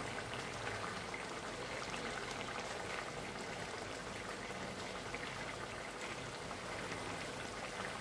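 Fish curry simmering in a pot over a lit gas burner: a steady, soft bubbling with fine crackles.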